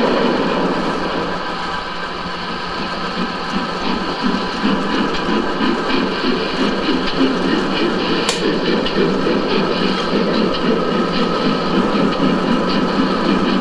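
A model steam locomotive hauling a short goods train along the layout's track, running steadily with a rapid, uneven rhythmic rumble.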